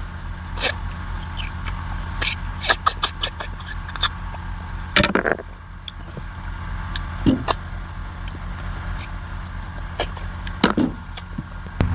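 A steady low hum with many scattered sharp clicks and knocks, and a few brief vocal sounds.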